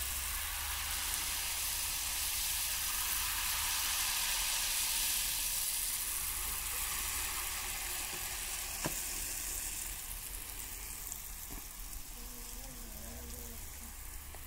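Jalebi batter frying in hot oil in a kadhai: a steady sizzle, loudest in the first half and easing off toward the end, with one sharp click about nine seconds in.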